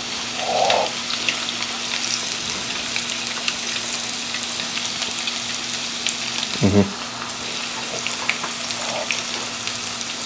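Pieces of breaded catfish frying in hot oil in a pan: a steady sizzle with fine, continuous crackling.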